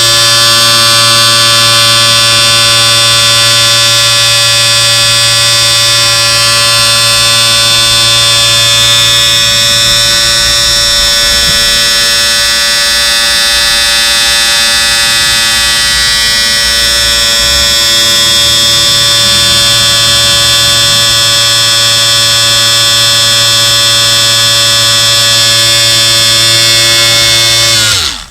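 Electric shaver running with a steady buzz; near the end it is switched off and its pitch falls as the motor winds down.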